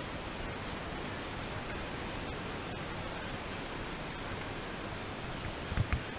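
Steady wind noise buffeting an action camera's microphone on a moving catamaran's deck, with a couple of low thumps near the end.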